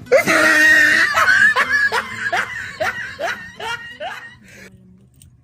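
A person laughing: a loud first burst, then a run of about seven short "ha"s that grow fainter and stop about three-quarters of the way through.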